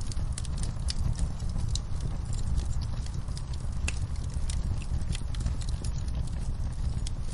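Log fire burning in a fireplace: a steady low rumble of flame with frequent irregular crackles and pops of burning wood.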